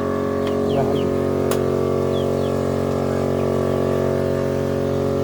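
A motor running with a steady, unchanging hum. There is a single sharp click about a second and a half in, and a few faint short high chirps.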